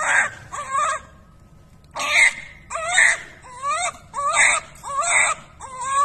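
Newborn baby crying in short, repeated wails, about eight cries with quick breaths between them and a brief pause about a second in.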